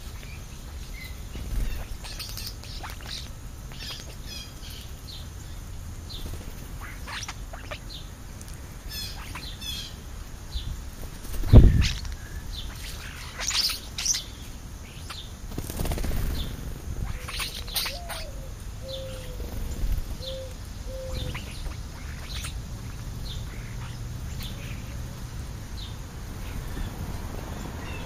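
European starlings and house sparrows feeding on the ground, giving scattered short chirps and whistles, with wings flapping as birds fly in and land. There is a loud low thump about twelve seconds in.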